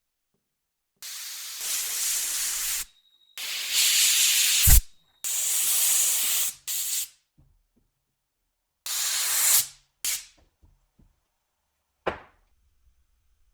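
About six hissing spray bursts, each starting and stopping abruptly and lasting up to about two seconds. They are followed by a single sharp click near the end.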